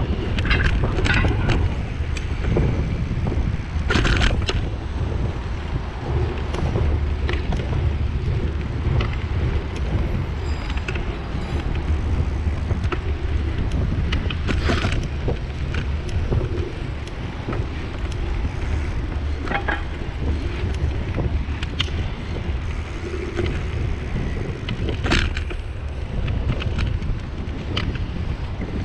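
Wind buffeting a bicycle-mounted camera's microphone while riding, over a low rumble of tyres on concrete road. A few short sharp rattles stand out, about 4, 15 and 25 seconds in.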